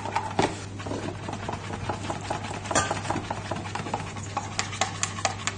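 A metal spoon stirring thick peanut-and-sesame paste sauce in a plastic measuring jug, making irregular clicks and scrapes several times a second. The paste is being worked with hot water until it loosens into a pourable sauce.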